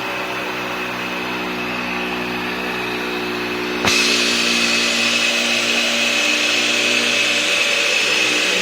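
Dyson DC65 Animal upright vacuum cleaner running on a carpeted car floor mat, a steady motor whine with a high tone. About four seconds in there is a click, and the sound steps up, louder and hissier.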